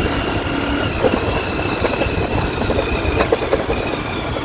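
Motorcycle running along a rough, rocky dirt road, its rumble mixed with rattles and short knocks from the bumps and a steady high whine.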